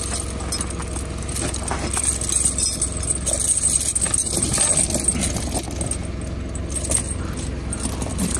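A vehicle engine running steadily at idle, with irregular metallic clinking and crunching over it.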